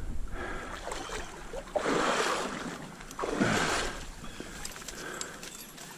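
Water splashing in three short bursts over the steady rush of a trout stream.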